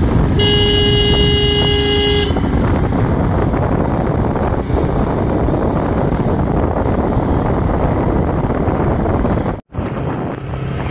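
Wind rushing over the microphone and road noise on a moving motorcycle, with one steady horn blast lasting about two seconds near the start. The sound cuts out for a moment near the end.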